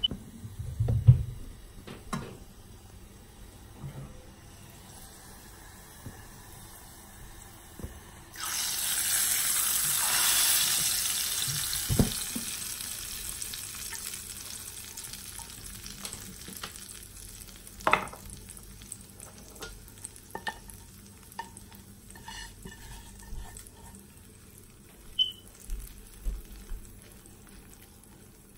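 Hot tadka of oil with fried onions, cumin and whole red chillies poured onto cooked chana dal, sizzling suddenly about eight seconds in and fading away over several seconds. A few sharp knocks come from handling the pan and dish, the loudest near the start.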